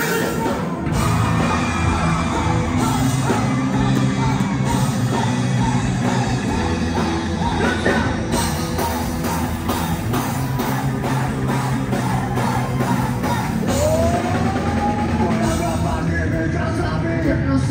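Live rock band playing a song loudly, with electric guitars and bass under sung melody lines, including one long gliding note about two-thirds of the way through.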